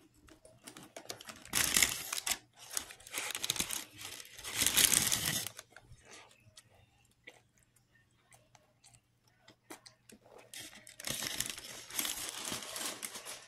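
Aluminium foil wrapper on a burrito crinkling and tearing as it is handled: three bursts in the first six seconds, then a longer stretch of crinkling near the end.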